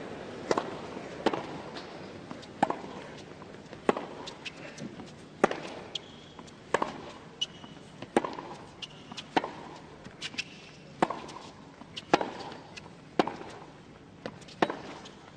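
Tennis ball being served and then hit back and forth in a long baseline rally on a hard court: sharp pops of racket strikes and ball bounces, about one a second, over a faint crowd background.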